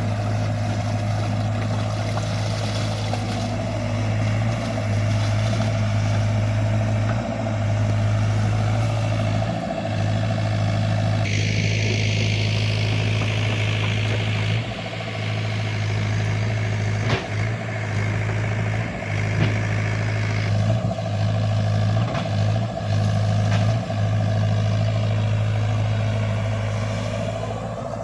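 XCMG mini excavator's diesel engine running steadily while it digs a ditch, with a higher hiss joining the engine drone from about 11 seconds in until about 20 seconds, and a few brief knocks in the second half.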